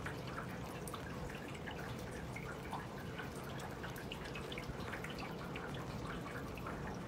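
Rainwater dripping and trickling from a house gutter: many small, irregular drips over a steady background hiss.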